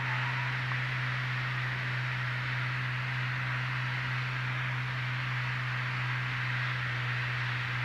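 Cessna 310's two piston engines and propellers droning steadily, heard inside the cabin, on final approach with the props and mixtures set full forward.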